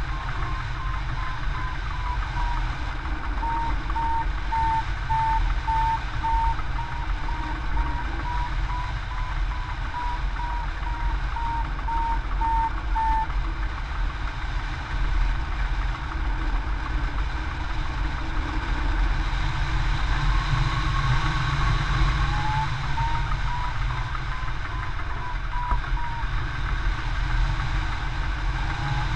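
Hang glider variometer beeping about twice a second, its pitch wavering a little, the sign of the glider climbing in lift; the beeping stops for several seconds midway and then returns. Under it, steady wind rushing over the microphone in flight.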